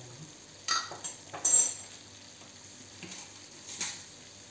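Chicken filling sizzling gently in a nonstick frying pan, with a few short clinks and clatters of utensils and containers being handled, the loudest about a second and a half in.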